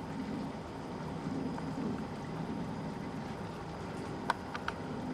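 Wind blowing in gusts, a steady low rushing noise, with a few faint clicks near the end.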